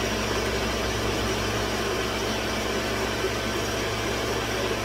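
Countertop blender running steadily at one speed, blending eggnog as green food colouring mixes through it.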